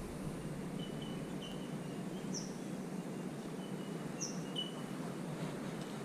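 Scattered short, high bird chirps, with two quick falling notes about two seconds apart, over a steady low outdoor background noise.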